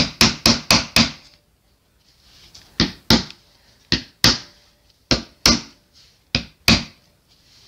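Hammer tapping push pins further into the wooden stretcher frame of a canvas, so the pins sit evenly as feet: a quick run of about five sharp taps in the first second, then pairs of taps about a second apart.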